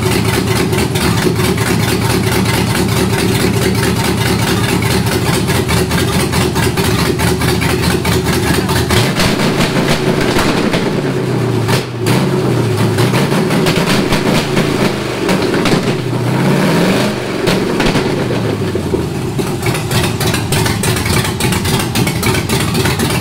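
5.3-litre aluminium LS V8 with a stage-two cam, running on an engine stand on a freshly set up, untuned Holley Terminator X fuel injection. It idles steadily, then from about nine seconds in is revved up and back down several times before settling back to idle, breaking up a little because nothing is dialled in yet.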